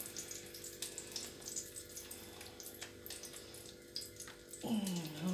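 Battered hake pieces frying in hot oil in a pan: a steady sizzling hiss with scattered small pops, over a steady low hum.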